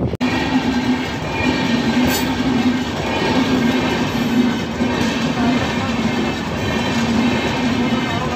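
Indian Railways passenger train with red coaches passing at close range: a steady rumble of wheels on the rails with a low hum that swells and fades.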